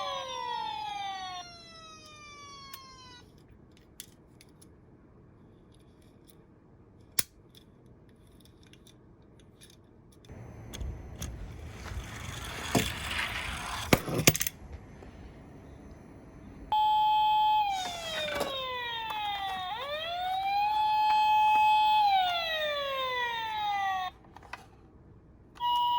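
Electronic siren of a toy emergency vehicle: a wailing tone that falls away at the start, then later holds steady, falls, rises and falls again. In between, a toy car rolls down a slope for about four seconds with a rough rattling noise and clicks.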